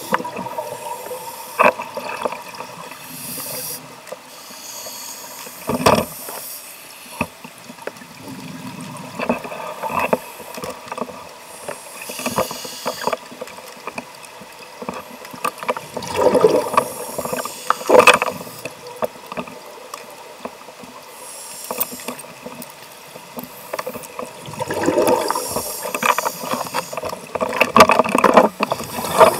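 Scuba divers' exhaled bubbles from their regulators, gurgling and hissing in bursts every few seconds, heard underwater through a camera's waterproof housing, with a few sharp knocks on the housing.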